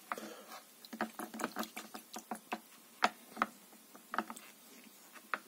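Irregular light clicks and knocks, several a second with short pauses, from hand-cleaning a freshly printed resin part in isopropyl alcohol.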